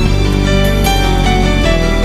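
Soft, relaxing instrumental background music: sustained low notes under a slowly changing melody.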